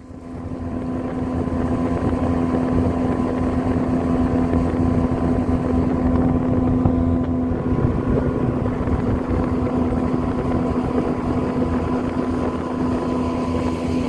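Outboard motor driving an inflatable boat along a river at steady speed: a constant engine drone with a strong steady hum, coming up over the first second or so and then holding steady.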